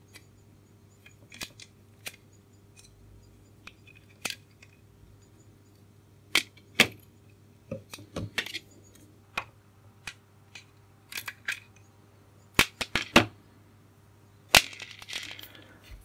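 Irregular sharp clicks and clinks of small steel hand tools and hardware: a screwdriver and pliers working stiff screws and nuts out of a metal radio chassis, with tools and nuts set down. The loudest come in a quick cluster a little before the end, then one more close to the end.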